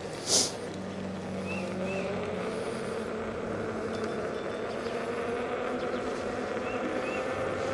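Veteran Sherman electric unicycle riding on asphalt: a steady rush of knobby off-road tire and road noise, with a faint hub-motor whine that slowly rises in pitch as it gathers speed. A brief hiss comes about half a second in.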